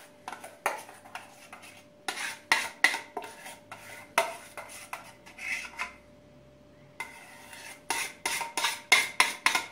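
A spoon scraping thick pudding cream out of a stainless steel saucepan, with irregular metal scrapes and clinks and a pause of about two seconds in the middle.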